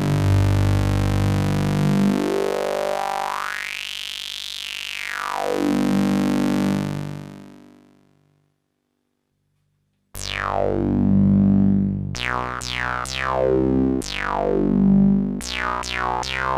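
IK Multimedia Uno Synth, a monophonic analog synthesizer, holding a low note while its filter sweeps slowly up and back down, then fading out. After a pause of about two seconds it plays a run of notes at changing pitches, each opening bright and quickly closing down with a filter envelope.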